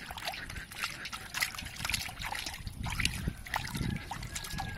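Water sloshing and splashing in a steel bowl as hands rub and wash raw oxtail pieces, with many small irregular splashes and drips.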